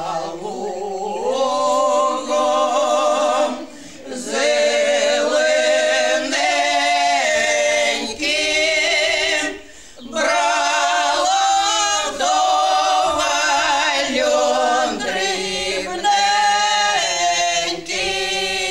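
Small women's ensemble singing a Ukrainian village folk song a cappella, in long held phrases with vibrato, breaking briefly between phrases a few times.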